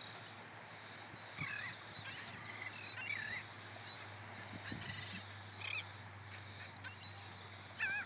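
A flock of seagulls calling, many short rising and falling cries overlapping one another, over a steady hiss of small surf.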